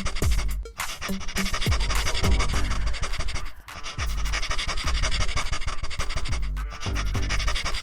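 Background electronic music with a fast, steady beat and bass notes, breaking off briefly twice.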